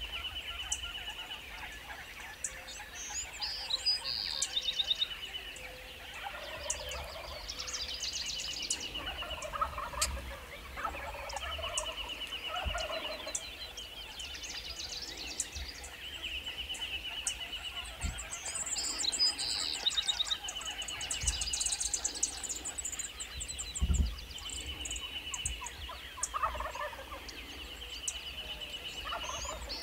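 Rio Grande wild turkey gobblers gobbling again and again, a rattling call every few seconds, while small songbirds trill and chirp. Two low thumps come about 18 and 24 seconds in, the second the loudest sound of all.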